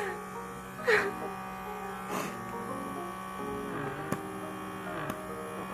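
Handheld pore vacuum's small electric motor buzzing steadily, with background music and a couple of short sharp sounds about one and two seconds in.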